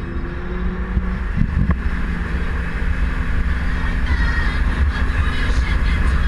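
Towboat under way at speed: a steady engine and water rush, with a heavy wind rumble on the microphone.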